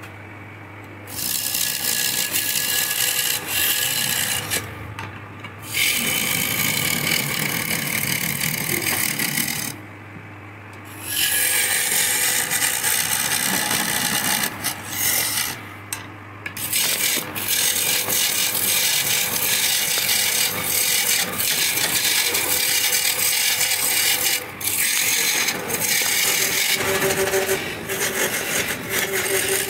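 A hand-held turning chisel cuts into a large wooden blank spinning on a lathe, giving long passes of rasping scrape. A few short pauses leave only the steady hum of the lathe motor.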